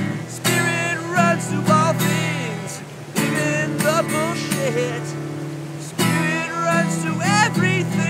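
Acoustic guitar strummed in sustained chords, a fresh strum roughly every three seconds, with a man's wordless singing sliding up and down in pitch over it.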